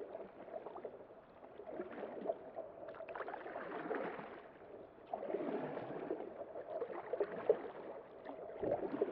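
Kayak paddling: the blades of a double-bladed paddle dipping and pulling through still lake water on alternating sides, with swishing, splashing and dripping that swell and fade with each stroke.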